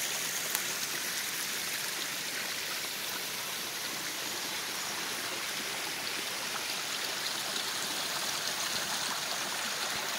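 Mountain stream flowing steadily, a continuous even babble of running water.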